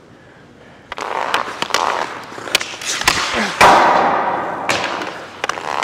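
Ice skates carving and scraping on rink ice as a hockey player strides in, with sharp clicks of the Bauer Nexus League stick's blade tapping the puck. It starts about a second in.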